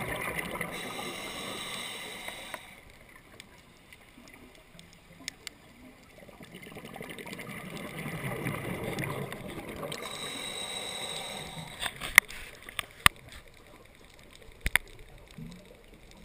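Underwater breathing of a scuba diver: two long exhalations bubbling out of the regulator with a quiet inhale between them, then a few sharp clicks.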